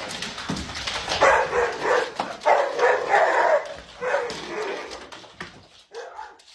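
A dog barking in a run of short, repeated barks.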